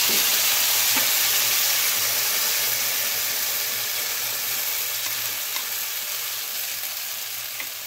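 Tomato paste sizzling in hot oil and fried ginger-garlic paste as it is poured into a nonstick pan. The sizzle is loud at first and slowly dies down.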